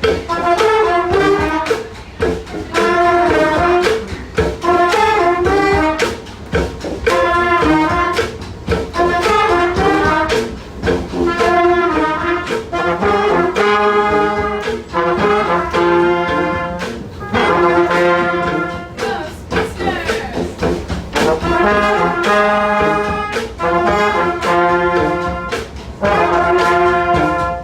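A brass street band of trombones, trumpets and saxophones playing a tune together, in short repeated phrases about two seconds long with brief breaks between them.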